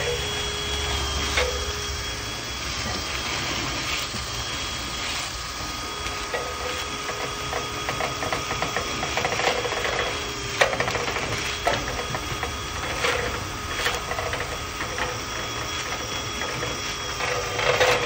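Cordless drill spinning a flexible rotary cleaning rod inside a dryer vent duct to clear a lint blockage: a steady motor whine that shifts slightly in pitch now and then, with irregular knocks and rattles as the spinning rod slaps against the duct and vent hood.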